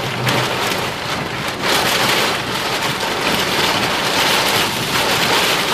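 Wind-driven rain beating on a car's windshield and body, heard from inside the cabin with the vehicle's running noise beneath, swelling and easing in surges every second or two: the heavy rain and strong winds of a derecho.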